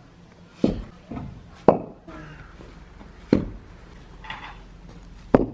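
Four sharp knocks, unevenly spaced one to one and a half seconds apart, with faint voices between them.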